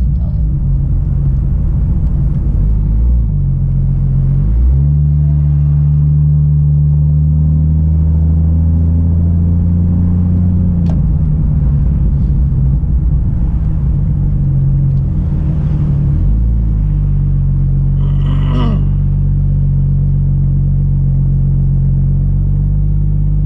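Car engine and road noise heard from inside the cabin while driving: a steady low hum that shifts in pitch about four seconds in and again near the end. A short rising higher sound cuts in briefly shortly before the end.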